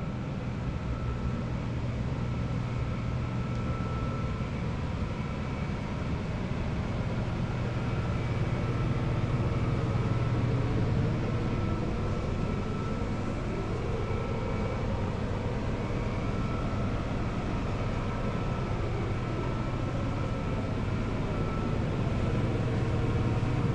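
Volkswagen MK8 GTI's turbocharged 2.0-litre four-cylinder engine idling, a steady low hum that swells slightly a couple of times.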